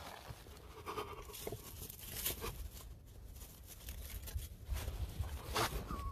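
Faint rustling and crackling with scattered sharp clicks, like clothing and hands moving against a handheld camera, over a low wind rumble on the microphone.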